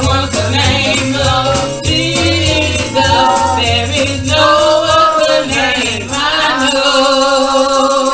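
A gospel song sung live by a woman into a microphone over amplified accompaniment, with bass and a rattling percussion keeping the beat. The bass drops out about six and a half seconds in.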